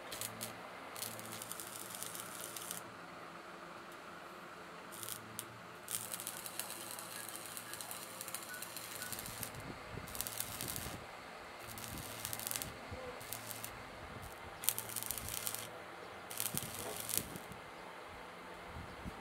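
Stick (arc) welding on sheet steel: the electrode's arc crackles and sizzles in spells of one to three seconds with short breaks between, over a low steady hum.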